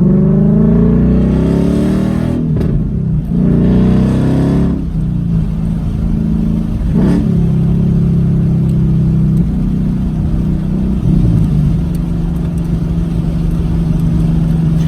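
Car engine accelerating through the gears, recorded from the moving car. Its pitch rises twice and drops at each upshift, then holds steady at a cruise.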